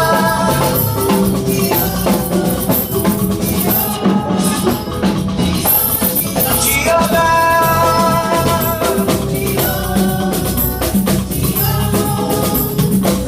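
Live church praise music: drums with rattling shaker and tambourine-type percussion keeping a fast beat under sustained singing voices.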